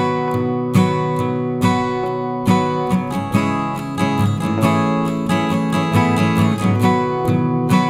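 Background music: acoustic guitar strummed in a steady rhythm, roughly one stroke every second or so.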